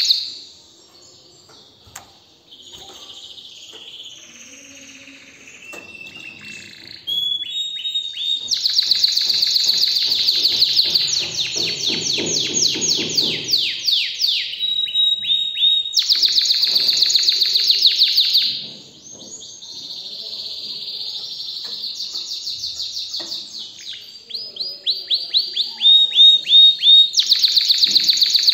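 Domestic canary singing. It opens with soft, quiet warbling for several seconds, then breaks into loud, fast trills and rolls of rapidly repeated high notes. The volume drops for a few seconds about two-thirds of the way through, then the loud trills return.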